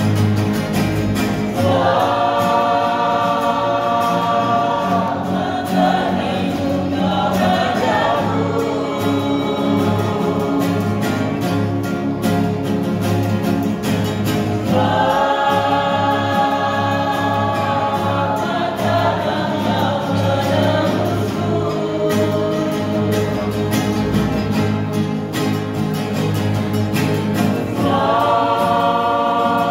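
Choir singing a Christian gospel song over a steady low accompaniment, in long held phrases; new phrases start about two seconds in, about halfway through, and near the end.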